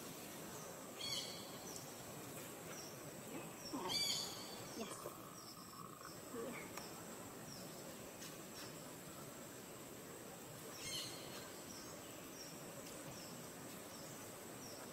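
Faint outdoor ambience: a steady background hiss with a few brief high chirps, about a second in, at four seconds and near eleven seconds.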